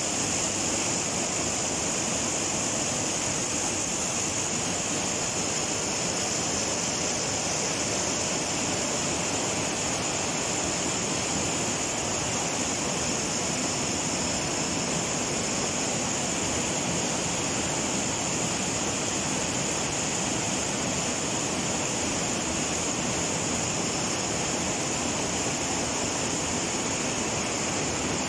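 Screw-making machinery running: a vibratory bowl feeder full of steel screw blanks rattling in a steady, dense, hiss-like din, with no separate strokes standing out.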